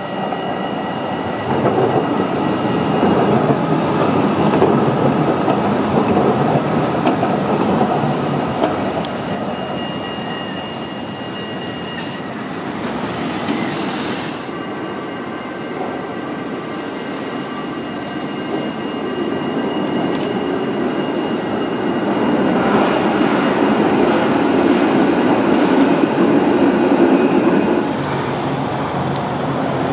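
HTM GTL8 articulated tram running along street track: a steady wheel-and-rail rumble that swells as the tram passes, with a thin, steady high-pitched ring over it. There is a brief hiss lasting a couple of seconds about halfway through.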